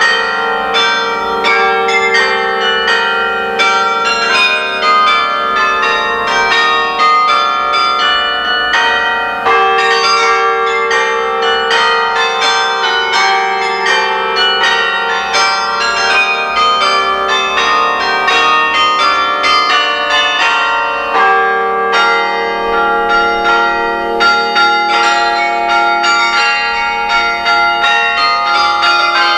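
Carillon bells played from the baton keyboard, a French carol arrangement: many bells struck in quick succession in a melody, their tones ringing on and overlapping over longer-held lower bells.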